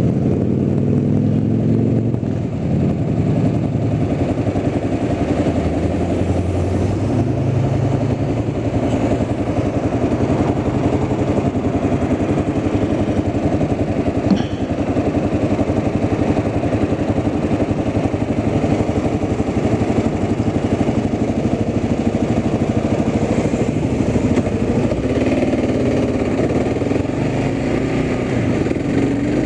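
Steady motor-vehicle engine and road rumble from a vehicle on the move, with the engine pitch shifting slightly near the start and near the end, and one brief click about halfway through.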